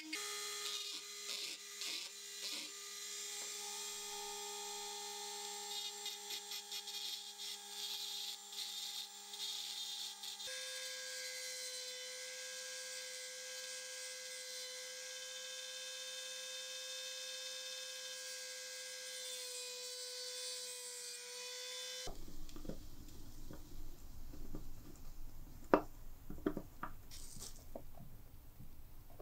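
Handheld rotary tool running with a steady high whine as it grinds a metal key, first with a small conical grinding stone, then, pitched a little higher from about ten seconds in, with a cut-off disc. The motor stops abruptly about two-thirds of the way through, followed by light handling clicks and one sharp tap.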